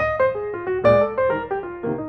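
Background piano music: a melody of quick successive notes over chords.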